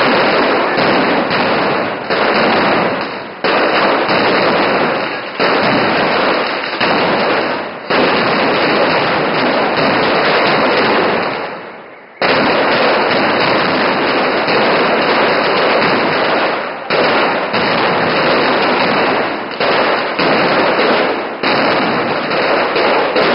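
Mascletà: a loud, dense barrage of firecracker bangs going off so fast that they merge into one continuous rattling noise. It thins out briefly a few times, fades about halfway through, then comes back suddenly at full force.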